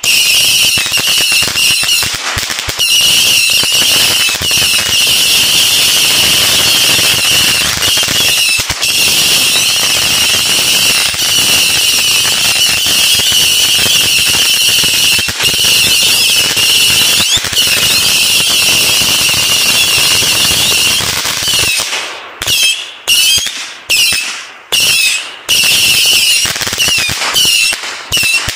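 Ground firework cake firing a rapid stream of whistling shots: a dense, continuous high shriek with crackle. After about twenty seconds it thins into separate whistling shots with short gaps between them.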